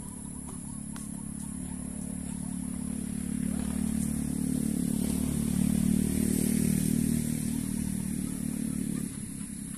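A motor vehicle engine running off-court, growing steadily louder for about six seconds and then dropping away shortly before the end. A few faint tennis ball strikes come through early on.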